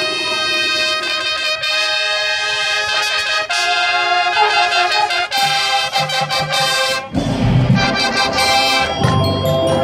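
Marching band brass playing held, sustained chords, joined about seven seconds in by a louder, deeper entry of low brass and drums.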